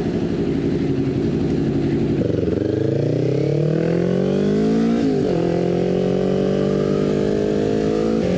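2020 Kawasaki Ninja 400's parallel-twin engine through a full Jeskap exhaust with the catalytic converter deleted, running steadily and then revving up as the bike pulls away. Its pitch drops suddenly at an upshift about five seconds in, after which it pulls on steadily.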